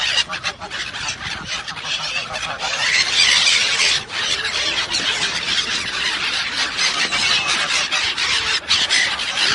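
A crowd of park birds (mute swans, gulls and pigeons) calling and jostling close by, loudest about three seconds in.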